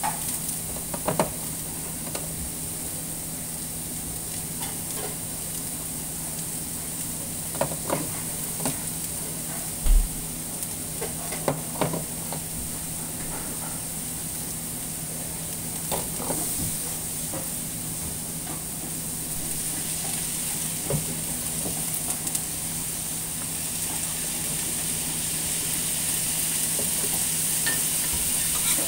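Beef and shredded vegetables sizzling on a hot steel teppan griddle, with short metallic clicks and scrapes of a spatula now and then. The sizzle grows louder over the last third.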